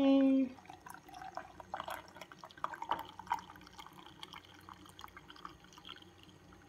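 A single-serve coffee maker's steady hum stops about half a second in, then a thin stream of coffee trickles and drips into a drinking glass.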